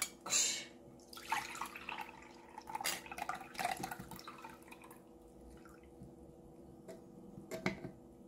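Canned pineapple juice pouring and splashing into a glass measuring cup for a few seconds, then thinning to a trickle with a few light clicks of metal on the can near the end.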